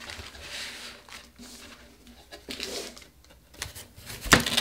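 Soft rustling and light handling of a camera's cardboard box and bagged accessories as they are set out on a table, with faint clicks and a sharp knock about four seconds in.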